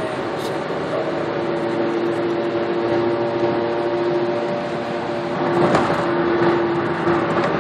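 Road and engine noise inside a car's cabin at highway speed: a steady rushing drone with a steady low hum, swelling briefly louder a few times near the end.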